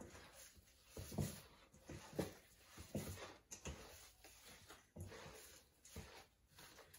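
Hands squishing and pressing ground-meat pelmeni filling in a stainless steel bowl, with soft wet thuds about once a second.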